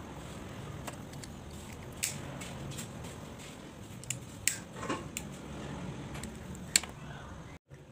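Scattered small clicks and taps from hands handling wires, heat-shrink tubing and a plastic lighter, over a steady low hum. The loudest click comes near the end.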